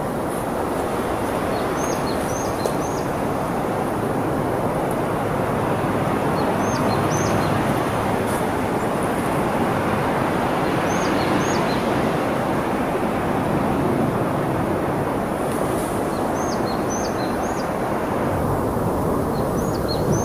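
Steady outdoor rushing noise throughout. Over it a small bird repeats a short phrase of two to four high, quickly falling notes every four or five seconds.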